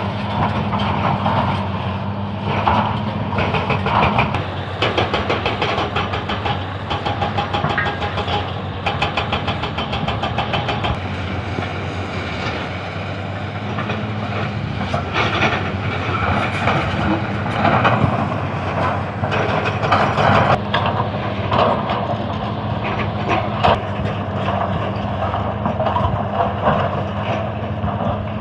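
Excavator's diesel engine running steadily under work, with frequent metallic clanking and rattling throughout.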